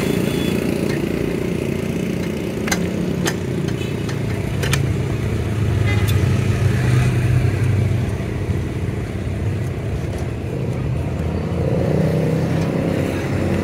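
A motor vehicle engine running steadily close by, its pitch swelling a little midway and settling again. A spanner clinks sharply on metal a few times between about three and five seconds in.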